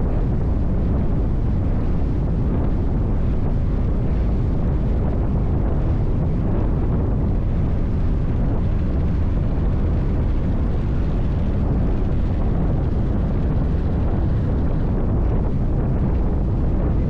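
V8 race boat running at speed through rough water: a steady, loud roar of engine, hull and wind buffeting the microphone, with no break or separate slam.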